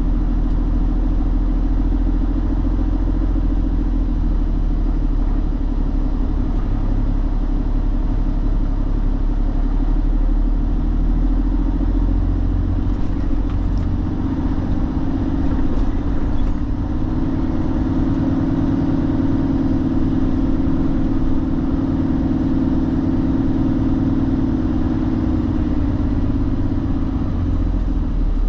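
Semi-truck running on the road: a steady, loud low rumble of engine and road noise, with a drone that grows a little stronger past the middle.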